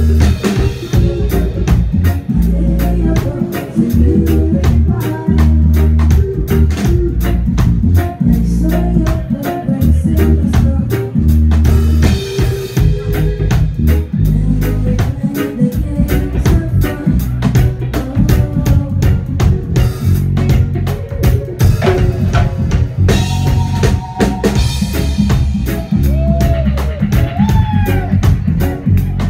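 Live reggae band playing: a loud bass guitar line and a drum kit carry the music, with little singing.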